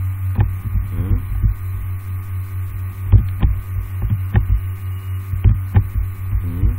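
Steady low electrical hum on the recording, with a scattering of sharp clicks at irregular intervals.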